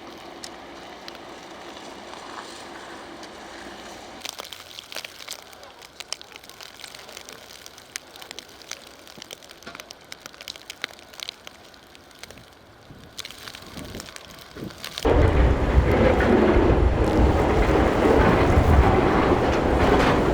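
Blizzard wind gusting outdoors, with scattered small clicks and crackles. About three-quarters of the way through, a loud rush of wind buffeting the microphone sets in suddenly and lasts several seconds.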